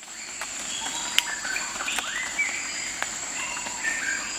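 Outdoor nature ambience: birds calling with short whistled notes, some rising in pitch, over a steady high-pitched insect drone, with a few sharp clicks.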